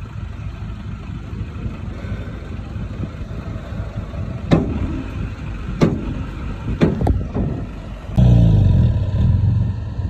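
Heavy earthmoving machine's engine running steadily, with several sharp knocks that ring briefly; about eight seconds in the engine gets much louder as it revs up under load.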